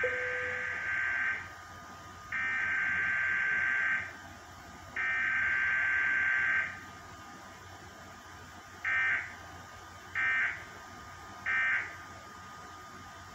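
Emergency Alert System SAME digital data bursts played through a television. Three long, buzzy, warbling header bursts of about a second and a half each come first. About two seconds later come three short end-of-message bursts, roughly a second and a half apart. Together they make up a Required Weekly Test alert.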